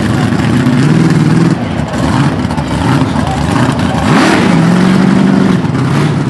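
Mud-bog truck engines revving hard. About four seconds in, the engine note sweeps sharply up and holds high for about a second.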